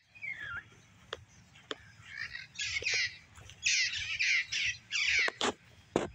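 Crow cawing: a series of short harsh caws at about three a second, in two runs, the first beginning about two seconds in.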